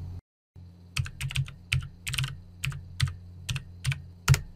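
Typing on a computer keyboard: about a dozen separate, unevenly spaced keystrokes, the last one the loudest, over a low steady hum.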